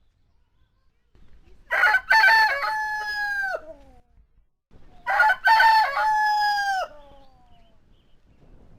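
Rooster crowing twice, a cock-a-doodle-doo about two seconds long each, the first starting near two seconds in and the second about three and a half seconds later. Each call opens with short broken notes and ends on a long held note that falls away at the end.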